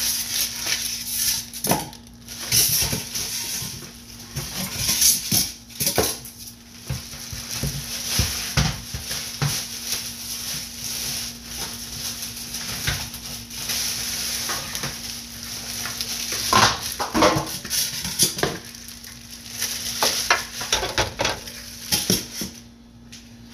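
Plastic wrapping crinkling and rustling as a new dish drying rack is unwrapped and handled, with scattered knocks and clatter from the rack's parts. A faint steady low hum runs underneath.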